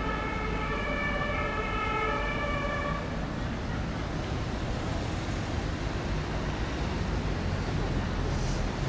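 Berlin S-Bahn electric trains at a station: a chord of steady whining tones for the first three seconds or so, then a steady low rumble as a BR485 train rolls slowly in.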